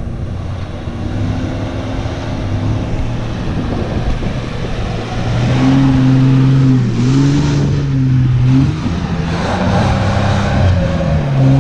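Four-wheel-drive vehicle's engine working over rough ground, its revs rising and falling, louder from about halfway.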